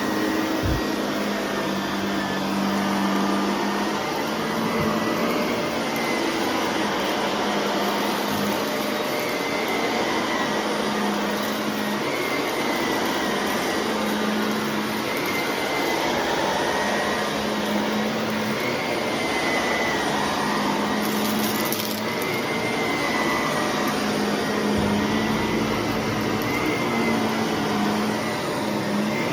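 Shark vacuum cleaner running steadily, a motor hum with a higher whine that wavers slightly in pitch.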